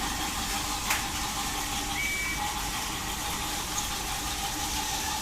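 A TOMY Trackmaster Talking Percy toy locomotive running along its plastic track: its small electric motor and gears whir steadily under the hiss of its built-in steam chuffing sound effect, with a single click about a second in.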